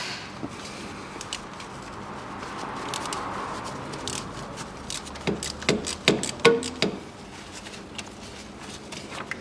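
Metal tool clicks and clinks as a wrench unscrews the 13 mm oil level plug on a manual gearbox. A cluster of sharp, irregular clicks comes about five to seven seconds in.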